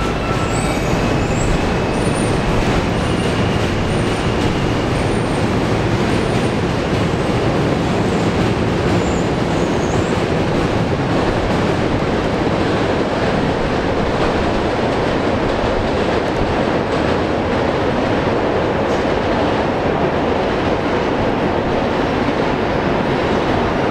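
Subway train running close by on an elevated steel structure: a loud, steady rumble of wheels on rails, with faint high wheel squeals during the first ten seconds or so.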